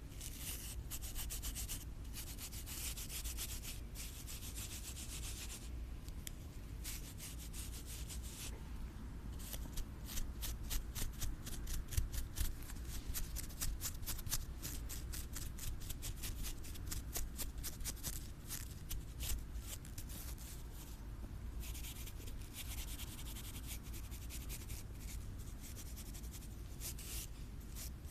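Close-miked ASMR scratching and rubbing on an object's surface. Long hissing strokes come at first and again near the end, with a fast run of short scratches, several a second, through the middle.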